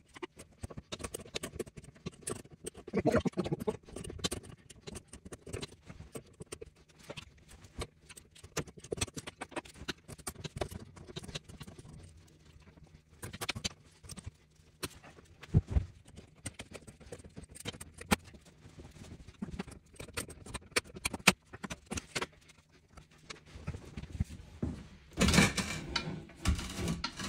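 Irregular metallic clicks and taps of a wrench loosening the nuts on a toilet's two floor bolts, with small handling knocks. Near the end comes a louder stretch of scraping and knocking as the porcelain toilet is rocked and lifted off the floor.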